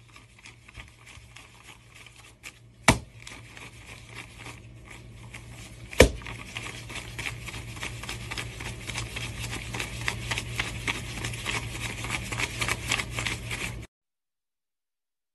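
Paper banknotes being counted out by hand, bill after bill, a dense crinkling, flicking rustle that grows louder and busier. Two sharp snaps stand out, about three and six seconds in, over a faint steady hum. The sound cuts off suddenly near the end.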